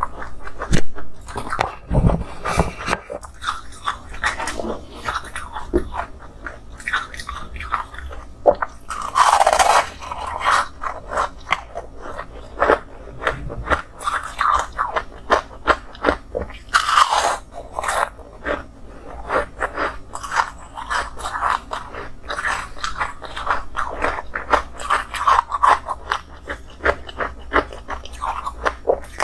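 Biting and chewing of frozen milky ice: a steady run of crisp crunches, with louder bites about nine and a half and seventeen seconds in.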